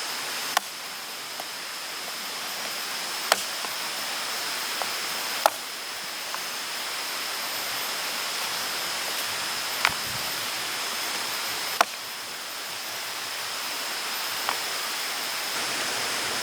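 Steady rainfall, an even hiss, broken by about five sharp single taps spread across the stretch, with a faint steady high-pitched tone underneath.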